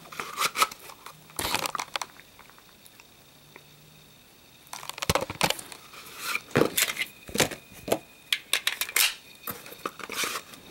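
Handling noise: a pistol being worked into a leather holster, with rustling and crinkling of plastic packaging bags and small clicks. A few sounds come in the first two seconds, then a quieter stretch, then a busy run of rustles and clicks from about five seconds in.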